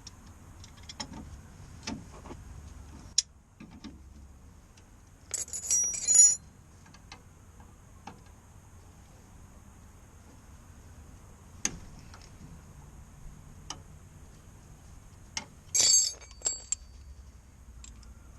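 Metal tools and parts clinking and tapping while a car's front hub is stripped down. Scattered light taps and clicks, with two brief bright metallic jangles, about five seconds in and again near the end.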